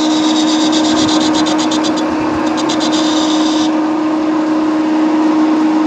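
Centre lathe running at 500 rpm with a steady hum while a turning tool, hand-fed on the swivelled compound slide, cuts a taper on the spinning workpiece. The cut gives a fast, high rattle that stops about three and a half seconds in.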